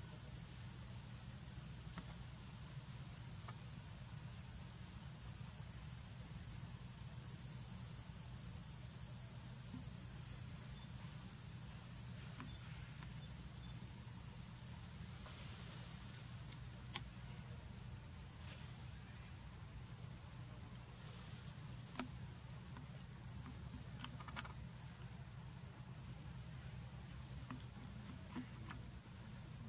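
Outdoor ambience of insects: a steady high drone with a short rising chirp repeating about every one and a half seconds, over a constant low rumble. A few sharp clicks stand out in the second half.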